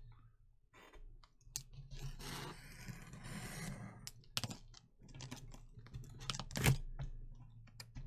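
A craft knife slitting the packing tape along a cardboard box's seam: a scratchy cutting stretch about two seconds in, then a run of sharp clicks and taps as the blade and fingers work along the tape, the loudest a little before the end.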